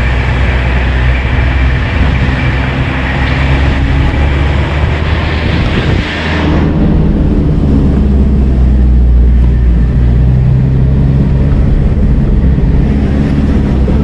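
Car driving along a rough village road: a steady low engine and road hum. A rushing wind noise over it cuts off abruptly about six and a half seconds in, leaving the low hum.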